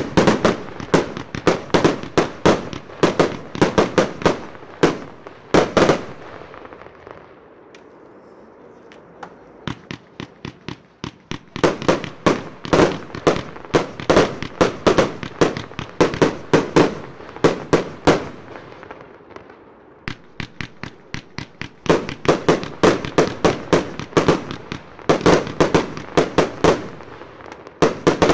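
Vuurwerk Totaal Gold Brutality, a 100-shot 30 mm firework cake, firing: a rapid run of launch thumps and shell bursts, several a second. The shots come in three dense runs, with sparser stretches between them.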